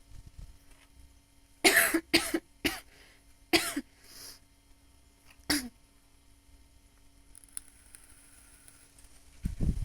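A woman coughing a smoker's cough: three quick coughs, then two more spaced a second or two apart.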